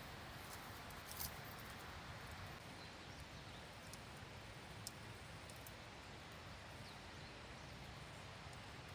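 Faint wood campfire crackling: a few sharp pops, the loudest about a second in, over a steady low hiss.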